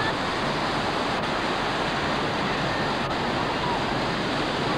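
Ocean surf breaking and washing in the shallows, a steady rushing noise.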